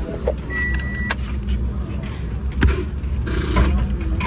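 Toyota's in-cabin reverse warning buzzer beeping steadily at a high pitch, its last beep ending about a second in with a sharp click as the lever leaves reverse. The engine idles low underneath, with a few knocks and a short rush of noise later on.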